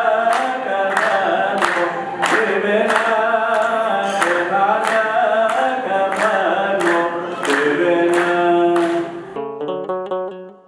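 A man sings a hymn with a sustained, wavering melody over a steady sharp beat of about two strikes a second. About nine seconds in, this gives way to a quieter instrumental jingle on a plucked string instrument.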